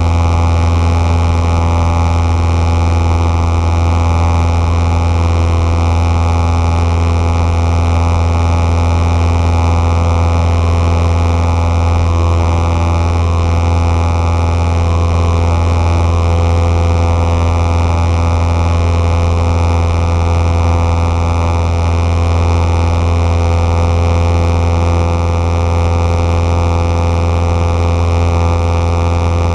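Single piston engine and propeller of a Cessna Skyhawk 172/180, heard inside the cabin in flight: a loud, steady drone with a deep hum and a constant hiss.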